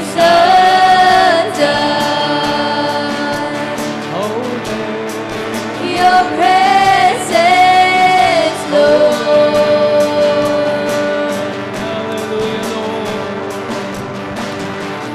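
A woman sings a slow Christian worship song into a microphone, with backing singers and steady instrumental accompaniment. Several sung notes are held long, about a second each.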